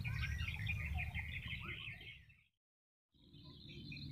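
Many small birds chirping over a low rumble. The sound cuts out completely for about a second a little past halfway, then the bird chirping resumes along with a steady high hum.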